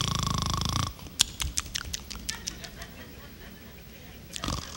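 A man imitating a loud rasping snore into a handheld microphone, lasting about a second, then a run of short clicks and a shorter snort near the end.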